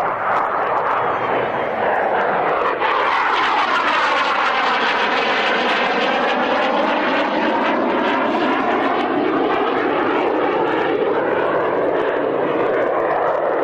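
SEPECAT Jaguar jet's twin Adour turbofans heard loud as it flies past, with a sweeping, phasing tone through the middle as it goes by.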